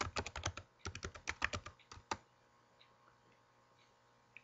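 Typing on a computer keyboard: a quick run of keystrokes for about two seconds, then only a few faint clicks.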